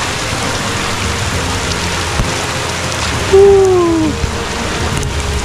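Steady hiss of rain falling. A brief pitched cry that falls in pitch comes a little over three seconds in and is the loudest sound.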